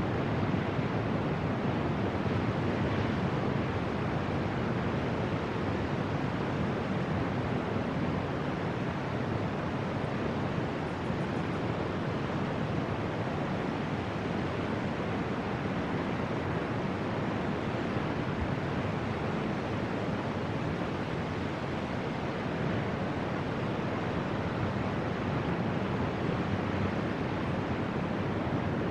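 Steady rush of ocean surf breaking on the shore, mixed with wind.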